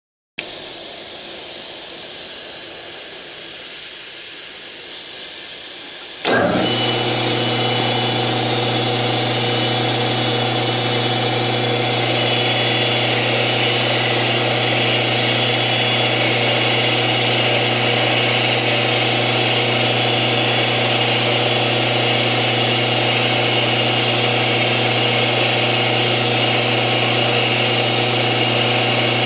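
Steady hiss of the lathe's coolant mist spray. About six seconds in, the circa-1986 Smithy combination lathe-mill-drill's spindle starts and runs with a steady mechanical hum while a boring bar insert turns down the outside of a spinning aluminium workpiece, throwing off curled chips.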